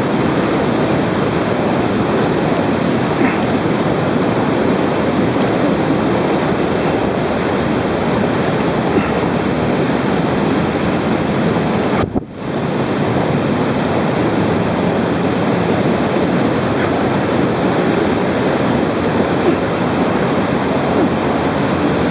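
Loud, steady rush of a mountain river's water pouring through a narrow rock gorge. The sound dips sharply for a moment about halfway through, then comes straight back.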